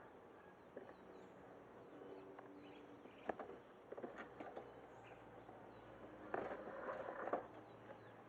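Zebra dove (merbok) cooing faintly, a short run of low notes about two seconds in, with small high chirps of other birds, a few sharp clicks, and a louder rustling burst near the end.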